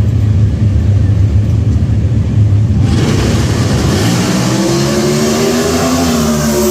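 Dodge Challenger drag-racing cars' engines running loud and steady on the start line. About three seconds in they launch: the sound jumps sharply louder and brighter, and the pitch climbs as they accelerate down the strip.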